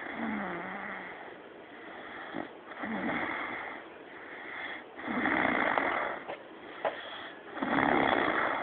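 A man snoring in his sleep: four snores about two and a half seconds apart, each louder than the one before.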